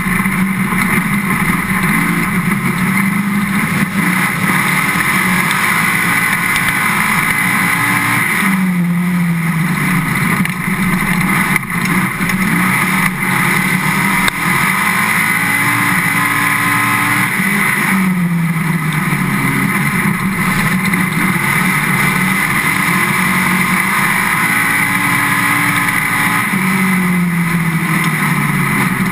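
Dirt-track race car's engine heard from onboard, held at high revs and dropping in pitch as the driver lifts for a turn, three times about nine seconds apart, then climbing again on the straight.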